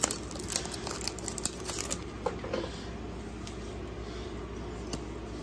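Foil booster-pack wrapper crinkling and tearing open in quick crackles for about the first two seconds, then quieter rustling as the trading cards are slid out of the pack.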